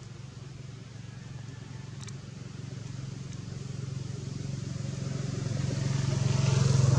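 A motor vehicle's engine hum, low and steady in pitch, growing louder over the last few seconds. A single brief click sounds about two seconds in.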